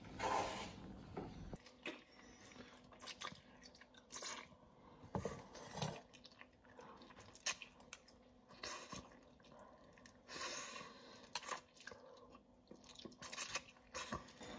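People eating: noodles being slurped and chewed, heard as short, scattered bursts with pauses between them.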